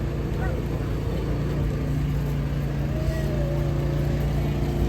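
A steady low engine hum, with a faint wavering tone about three seconds in.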